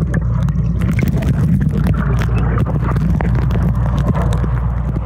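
Pool water heard by a camera held underwater: a steady muffled low rumble with many small clicks and pops of bubbles.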